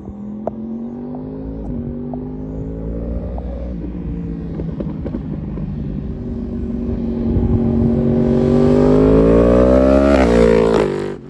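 Yamaha R1 crossplane inline-four through its Akrapovic silencer, heard from the rider's seat as the bike is ridden hard. Revs climb, ease, then rise steeply and loud over the last few seconds before the pitch drops sharply near the end as the throttle closes.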